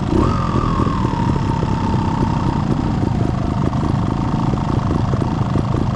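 Trials motorcycle engine running steadily at low revs. A high tone that falls slightly in pitch sits over it for the first two seconds or so, then fades.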